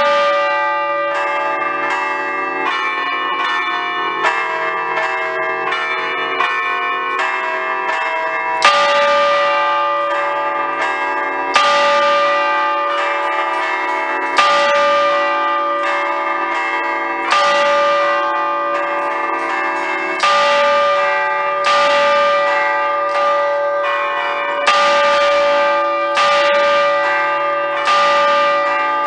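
Five Ambrosian church bells in D, cast by Giorgio Pruneri in 1875, chimed by hand on cords to their clappers in a festive allegrezza, heard close up in the belfry. Rapid interlocking strokes give way, about eight seconds in, to a slower pattern with a heavy stroke every two to three seconds and lighter strokes between, each note ringing on.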